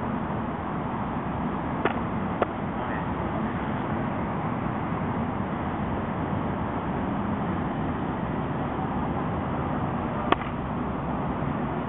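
Steady background hiss with three sharp clacks of sparring weapons striking: two about half a second apart about two seconds in, and one near the end.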